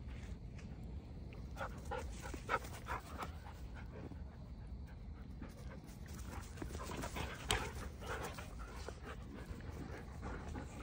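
Wolfdogs panting as they play together, with clusters of short sharp noises about two seconds in and again around seven to eight seconds in.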